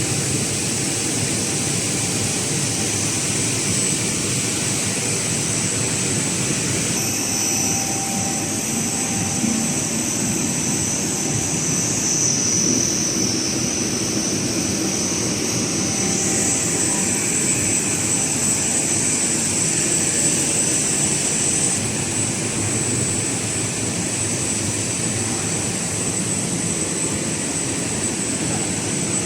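Snack pellet frying line machinery running: a steady mechanical drone with faint high whines, its mix shifting slightly a few times.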